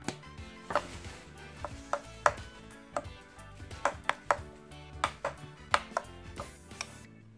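Metal spoon clinking against a ceramic bowl while ground pork is stirred, with irregular sharp clinks about two a second.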